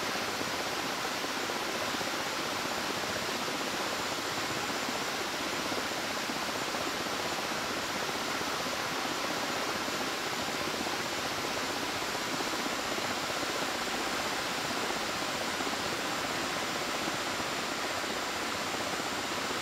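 Steady rush of whitewater river rapids, an even hiss with no distinct splashes or strokes standing out.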